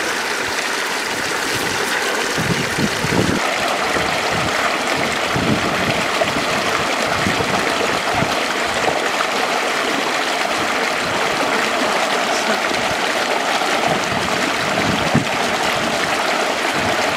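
Water rushing steadily along a small stone-lined channel, pouring past a concrete slab.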